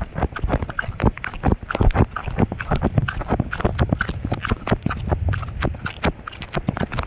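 Quick footsteps of someone running, about three or four a second, each step knocking the handheld microphone, over a low wind-like rumble.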